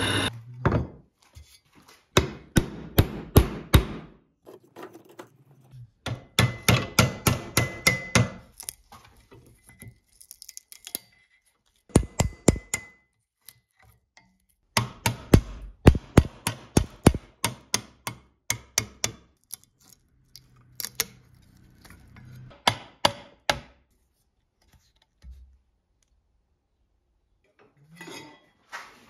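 Sharp metallic taps in bursts of several strikes, about four a second, with short pauses between the bursts. A thin ringing tone is heard in the middle.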